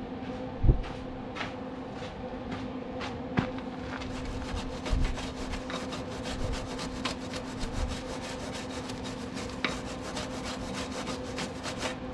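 Electric arc welding: an irregular crackling and spitting of the arc as a repair weld is laid on steel. The crackle grows denser about four seconds in, over a steady low hum.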